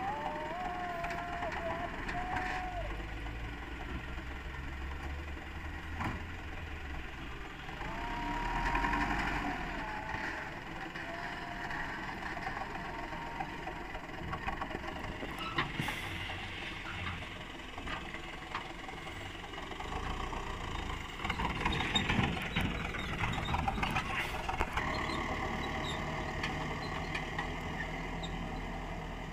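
Diesel engines of a Hino Dutro dump truck and a wheel loader running while the truck's raised bed tips out soil. A whine shifts up and down in pitch near the start and again about eight seconds in, with a few sharp knocks and a louder rough stretch past the twenty-second mark.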